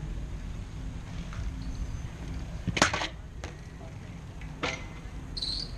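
BMX bikes on a concrete skatepark: a steady low rumble, with one sharp clack about three seconds in, two lighter knocks after it, and a brief high squeak near the end.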